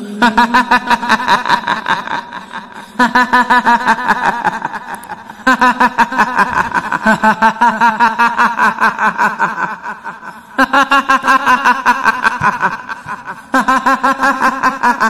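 Kuntilanak ghost laugh: a woman's voice cackling in a rapid, staccato 'hihihi', in five bursts that each start loud and trail off.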